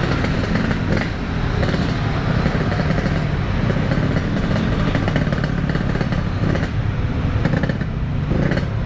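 Yamaha RX-King 135cc single-cylinder two-stroke motorcycle engine running under way, a steady loud exhaust note heard from the rider's seat.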